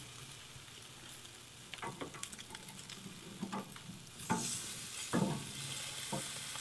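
Steak and pork chop sizzling on a hot grill grate, the sizzle growing louder about four seconds in as the pork chop is turned over with tongs. A few brief knocks come through it.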